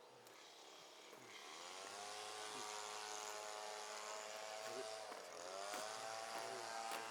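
An engine starts up and rises in pitch, holds steady, dips briefly about five seconds in, then rises and holds again.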